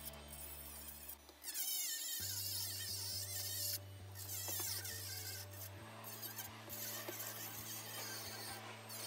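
High whine of a Dremel rotary tool with a metal cut-off wheel cutting into a resin bust, wavering in pitch as it bites, over background music with sustained low notes that change every few seconds.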